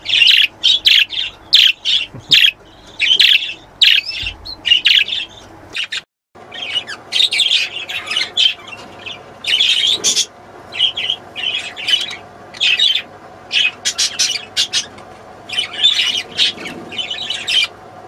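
Budgerigars chirping and chattering: a rapid, continuous run of short, high calls, broken by a brief gap about six seconds in.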